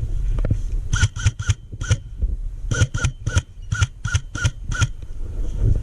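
Airsoft gun firing single shots in two quick strings, about eleven sharp cracks in all, each with a short ring, over a low rumble of wind and movement.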